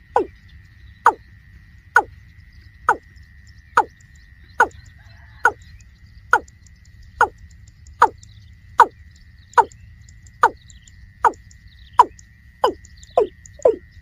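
Watercock calls: a series of hollow, downward-sliding notes about one a second, coming faster near the end.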